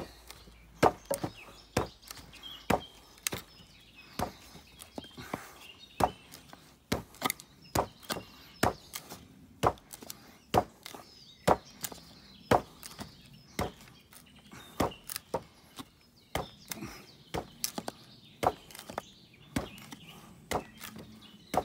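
A carbon-steel bushcraft knife driven point-first into the end grain of a log, its handle struck by hand: a long run of sharp knocks, roughly one a second and some in quick pairs. It is a tip-strength test to see whether the tip of this knife, which failed heat treatment, snaps off.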